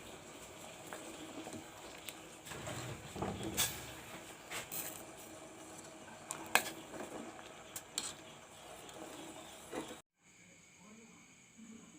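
Pot of water with grated ginger, kencur and palm sugar heating on the stove: a faint steady hiss with a few sharp clinks and knocks. The sound cuts off abruptly near the end, leaving a thinner, quieter hum.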